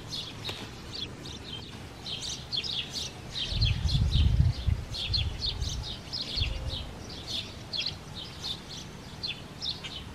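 Songbirds chirping and calling, many short high notes throughout. A low rumble about three and a half seconds in, and a smaller one near six and a half seconds, is the loudest sound.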